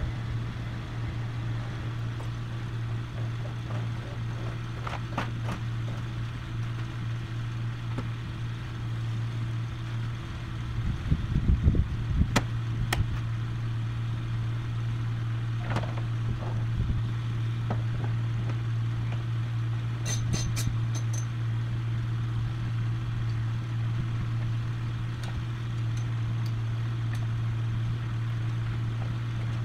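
Steady low hum from the Jeep Cherokee recovery rig, its 4.0-litre engine running while the winch pulls a heavy wrecker on a single line. A short run of low knocks and clunks comes about eleven to thirteen seconds in.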